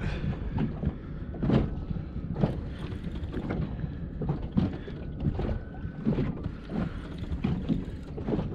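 Wind rumbling on the microphone, with small waves slapping against a boat's hull in irregular knocks about every second.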